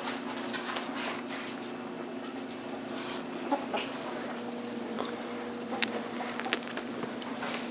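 Ferret dooking: short clucking chuckles of an excited, playing ferret, with scattered sharp clicks over a steady low hum.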